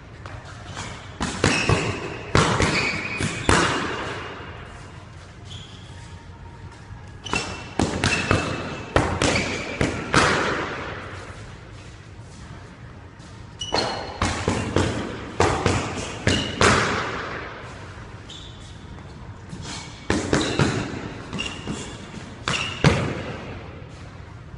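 Boxing gloves landing punches in four quick flurries of thuds, each ringing on in the echo of a squash court, with short sneaker squeaks on the wooden floor in between.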